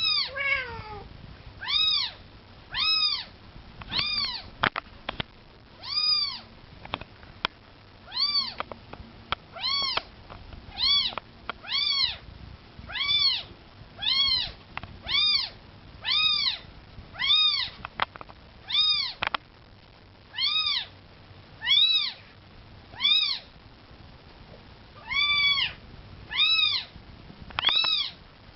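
A young kitten mewing over and over, about one high-pitched mew a second, each rising then falling in pitch, with a few faint clicks in between. The kitten is calling for its milk.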